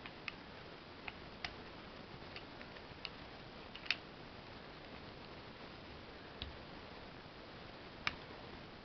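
Scattered small clicks and ticks of fingers pushing a spring-loaded carbon brush into the brush holder of an old DWT angle grinder's plastic housing. The sharpest clicks come about four seconds in and near the end.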